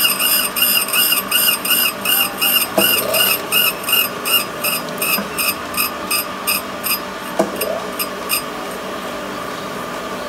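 Valve refacing machine grinding the face of a Toyota 4A engine valve: a high grinding whine that pulses about three times a second, with two sharp ticks along the way. About eight and a half seconds in the pulsing stops and a steadier, quieter running sound remains.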